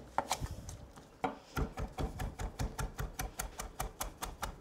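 Chef's knife chopping fresh basil on a wooden cutting board: a few scattered strokes, then from about a second in a fast, steady run of chops, about five a second, the blade knocking the board each time.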